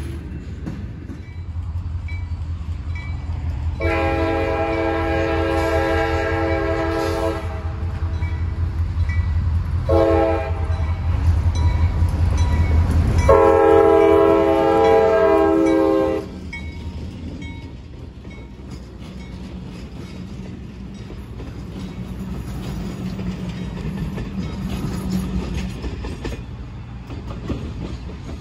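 A diesel locomotive horn sounds a long blast, a short one and another long blast over the low rumble and clatter of passing trains. The heavy rumble cuts off abruptly during the last blast, leaving a softer rumble.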